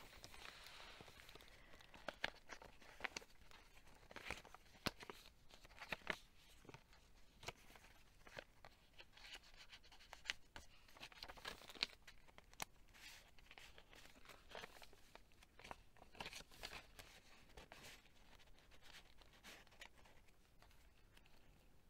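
Faint rustling and crinkling of stiff paper pages, tags and envelopes being turned and handled in a handmade paper journal, with scattered light clicks.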